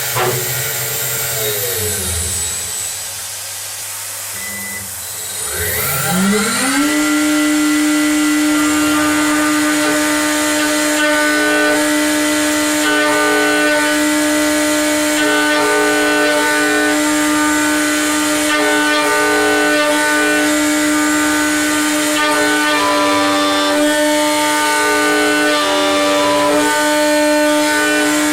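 CNC milling spindle motor spinning down with a falling whine, then about six seconds in spinning back up with a rising whine. It settles into a steady high whine that runs on, with shifting cutting noise over it as it machines aluminium.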